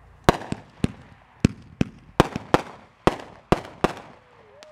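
Aerial firework shells bursting in a quick string of about a dozen sharp bangs, each with a short trailing echo.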